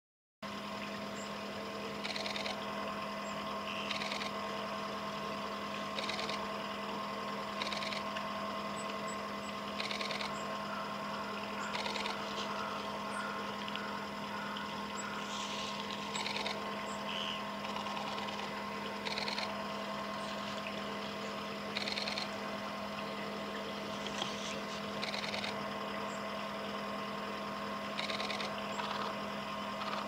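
A female brambling bathing in a shallow pool: short bursts of splashing every couple of seconds, over a steady low hum.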